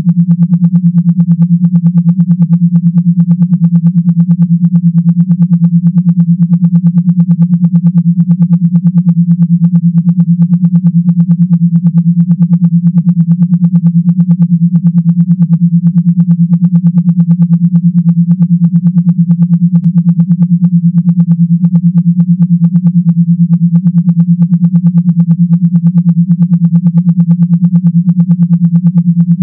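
Electronic vibration buzz: a loud, low, steady hum that pulses rapidly and evenly, made to vibrate a phone speaker or to serve as a massage-style vibration sound.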